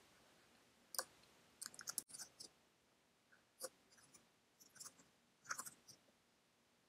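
Near silence with a few faint, crisp clicks scattered in small clusters.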